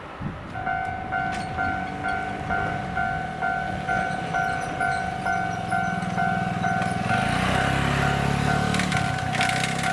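Japanese level-crossing warning bell starting to ring about half a second in, an electronic ding repeating about twice a second. From about seven seconds in, the rumble of an approaching train rises beneath it.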